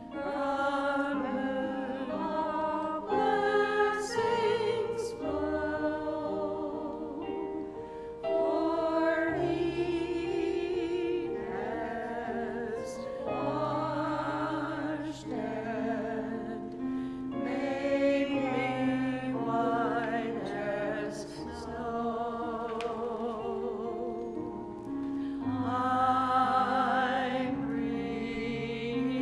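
Small church choir of women's and men's voices singing an anthem together.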